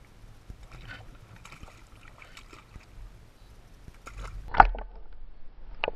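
Water sloshing against the side of a kayak, then a loud splash about four and a half seconds in as a released fish drops back into the sea, with another splash at the very end.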